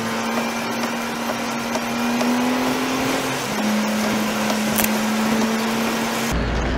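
Road noise from inside a lorry cab on a wet motorway: a steady hiss of tyres and spray with a steady engine drone, which drops slightly in pitch about three and a half seconds in.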